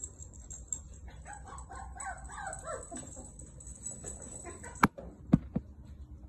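Six-week-old toy poodle puppies whining in high, wavering cries for about two seconds, then three sharp knocks in quick succession near the end.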